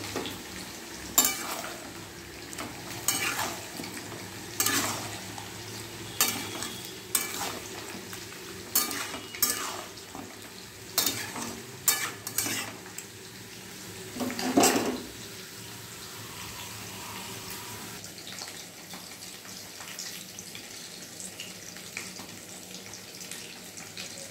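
A metal spatula scraping and knocking against a metal wok as chilli chicken in sauce is stir-fried over a low sizzle. The strokes come irregularly, about a dozen of them, and stop about fifteen seconds in, leaving only the sizzle.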